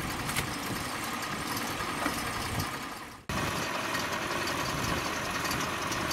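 Engine running steadily at idle. About three seconds in the sound sags briefly, then cuts straight back in.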